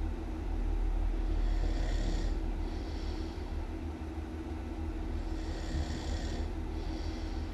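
A person snoring loudly in a slow, even rhythm. There are two breath cycles, each with an airy hiss in two parts, over a constant low rumble.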